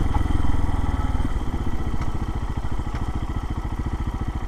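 Lifan KPX250's single-cylinder four-stroke 250 cc engine running at low speed with an even, rapid beat. It eases off a little about a second in, then settles.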